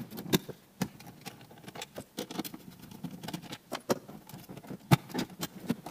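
Plastic dashboard trim and the head-unit panel being unclipped and handled: a series of sharp plastic clicks and clacks, the loudest about five seconds in.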